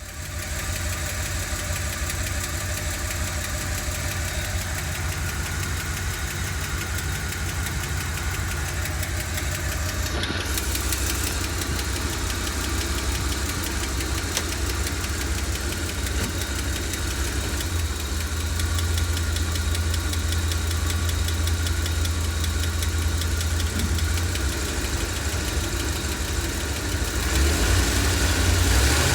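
1990 Ford 460 (7.5-litre) big-block V8 idling with a rapid, steady ticking whose cause the owner does not know. It grows a little louder after about 18 seconds and again near the end.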